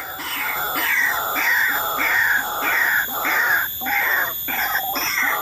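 White-breasted waterhen (ruak-ruak) calling: a loud, fast run of harsh, falling notes, one about every half second or so.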